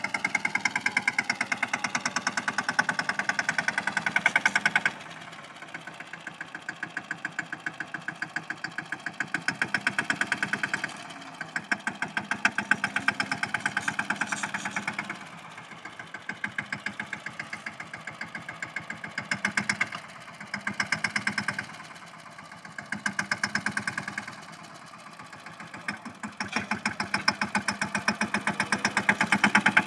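Mahindra Yuvraj tractor's single-cylinder diesel engine running under load as it pulls a cultivator and leveling roller through ploughed soil. Its fast, even exhaust beat rises and falls in loudness several times: loud at first, dropping suddenly about five seconds in, and loud again near the end.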